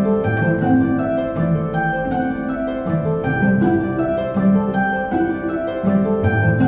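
Background music of plucked strings, a quick, even stream of notes over lower held tones.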